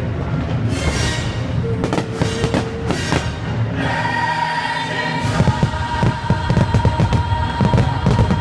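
Choral music with a held tone. From about five seconds in, a rapid run of bangs and crackles joins it.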